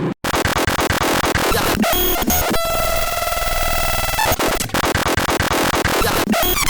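Harsh, noisy electronic music: a brief dropout right at the start, then a dense stream of rapid glitchy beats and clicks, with a held synthesizer tone sounding over them for about a second and a half in the middle.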